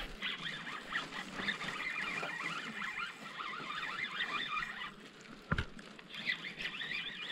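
A flock of birds calling, a continuous chatter of many short high calls that eases off about five seconds in and picks up again. A single sharp knock about five and a half seconds in.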